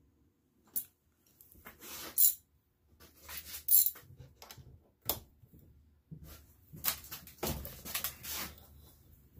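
Metal hand tools clinking and scraping as a socket and wrench are handled and fitted onto a socket extension set in a steel valve body held in a vise. The clinks come at irregular moments, the sharpest about two and four seconds in, with a busier run of clatter near the end.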